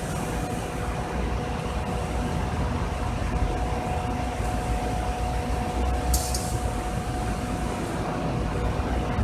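A/C service unit's vacuum pump running steadily with a low rumble and a steady hum, evacuating a truck's air-conditioning system. A brief high hiss about six seconds in.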